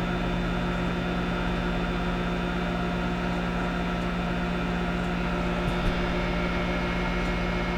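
Microwave oven running with a steady hum, drawing about 1700 watts from a 2000-watt inverter.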